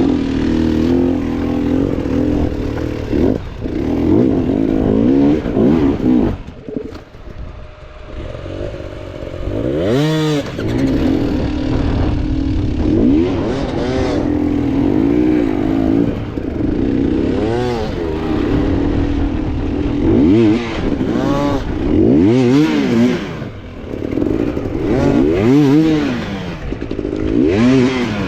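Two-stroke enduro motorcycle engines running, with repeated short throttle blips: the pitch climbs sharply and drops back again, about ten times, with a brief lull about seven seconds in.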